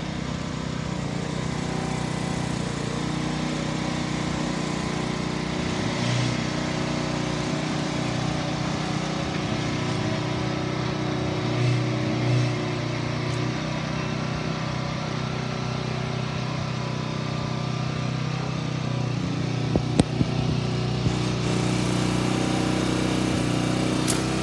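Kubota TRS30 walk-behind rotary tiller's small engine running steadily, with a few sharp clicks about twenty seconds in and again near the end.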